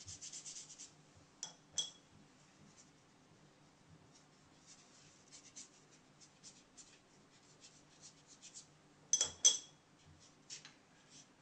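Wet watercolour brush stroking plain water across watercolour paper in soft, short scratchy strokes, damping the paper before the background wash. Twice a pair of light clinks rings out, about a second and a half in and again near the end.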